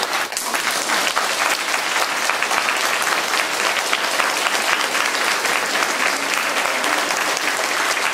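A roomful of people applauding steadily, many hands clapping at once in a dense, even patter.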